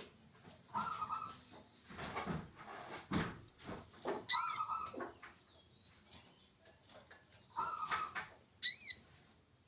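A small bird giving two loud, sharp, arched chirps about four seconds apart, with scattered rustling and scraping sounds around them.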